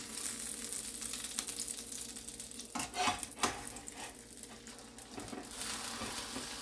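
Breaded chicken cutlets frying in olive oil in a skillet: a steady sizzle with fine crackling, and a few sharp knocks of a utensil against the pan about three seconds in.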